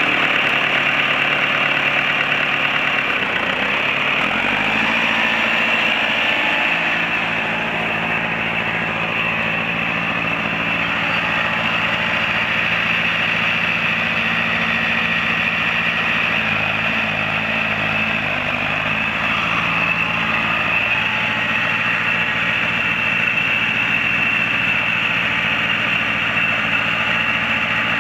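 1957 Ford 841 tractor's four-cylinder engine running steadily as the tractor is driven, its speed shifting up about five seconds in and changing again a couple of times later.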